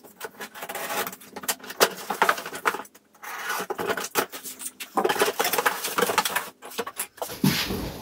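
Cardboard box being opened: packing tape peeled off the top and the cardboard flaps pulled open, a run of crackling, scraping and rustling with a couple of short pauses.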